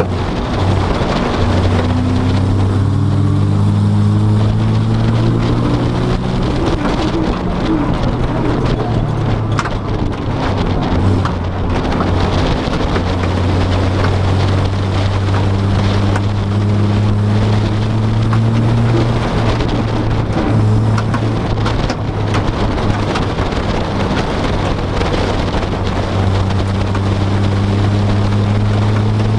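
Car interior: steady engine and road drone, the engine note shifting now and then, with scattered sharp cracks and pops of fireworks going off outside.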